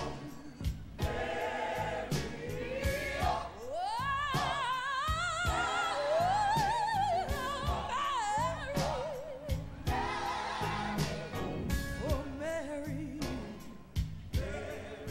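A woman singing a gospel spiritual solo over musical accompaniment with a steady beat. Her voice has a wide vibrato and makes a long upward slide about four seconds in, then holds and ornaments high notes.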